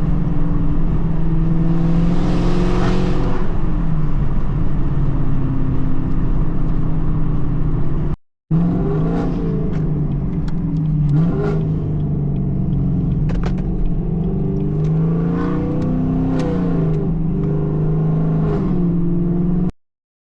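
Car engine running while driving, its pitch rising and falling with the revs. The sound breaks off briefly about eight seconds in and cuts off just before the end.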